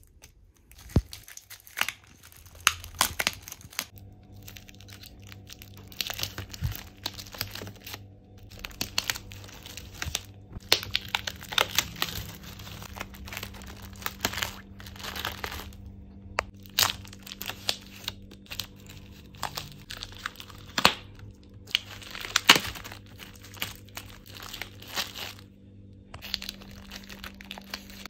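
Plastic shrink-wrap on multipacks of juice boxes being slit with a blade, then torn and crinkled off by hand, in many short irregular rips and rustles.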